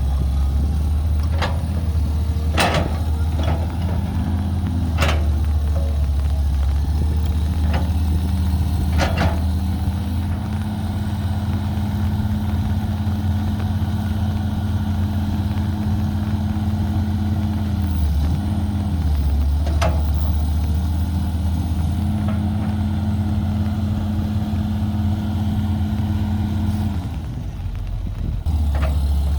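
Caterpillar 312B excavator's diesel engine running steadily, its pitch dipping briefly a few times, with sharp metallic knocks several times in the first ten seconds and once more near twenty seconds.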